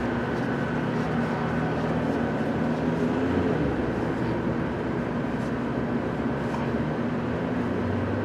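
Steady low background hum and rumble, with a few faint steady tones, and no distinct clicks or knocks.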